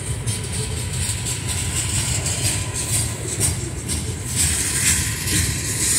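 Freight cars rolling past on steel wheels: a steady low rumble of wheels on rail with scattered clicks and rattles. A rushing hiss swells up about four seconds in.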